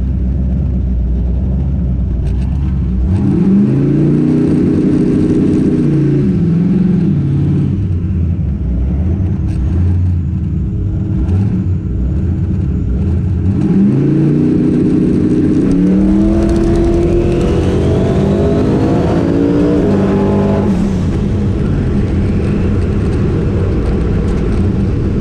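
Twin-turbo LS V8 drag car engine heard from inside the cockpit, idling and revving up twice. The first rev comes about three seconds in and falls back after a few seconds. The second starts about fourteen seconds in and climbs higher for several seconds before dropping back.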